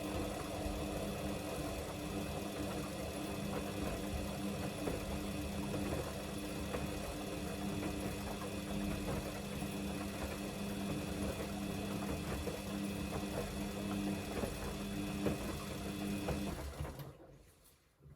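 Samsung washing machine's motor turning the drum during the wash, a steady hum and whine over the low rumble of the turning drum. It winds down and stops about a second before the end.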